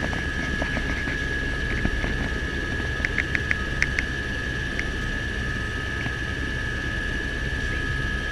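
Helicopter turbine engine running while the helicopter sits on the ground, heard from inside the cabin: a steady high whine over a low rumble. A short run of sharp clicks comes about three to four seconds in.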